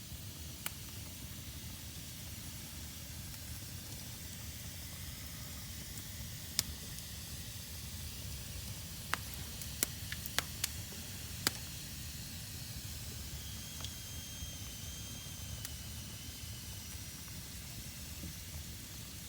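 Fire burning in a fireplace: a steady low rumble and hiss, with sharp crackles and pops, most of them bunched together just past the middle.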